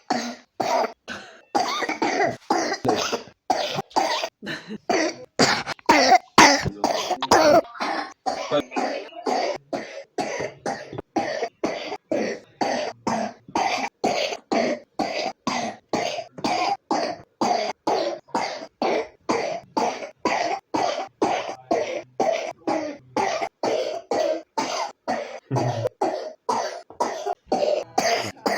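A three-year-old child with pneumonia coughing in a long, unbroken run of short coughs, about two a second.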